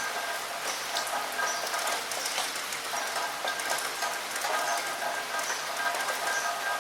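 Steady rain falling at a window, the drops making an even hiss.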